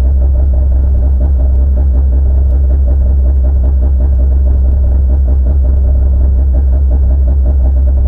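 Citroën C2 R2 rally car's 1.6-litre four-cylinder engine idling steadily with the car stationary, a deep, even rumble heard inside the cabin.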